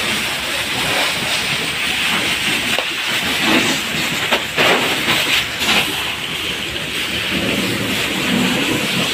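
Water jet from a fire hose nozzle spraying onto burning clothes and debris, a steady hissing rush, with a few short knocks in the middle.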